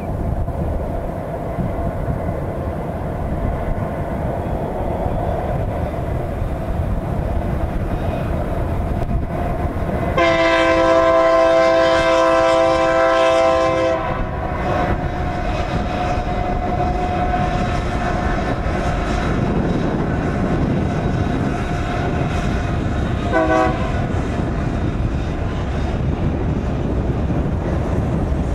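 Diesel freight train running across a viaduct with a steady low rumble. About ten seconds in, the locomotive's air horn sounds a chord for about four seconds, and it gives a brief second toot near the end.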